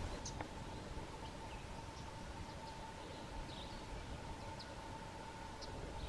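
Quiet woodland background: a steady faint hum with a few brief, high bird chips scattered through it.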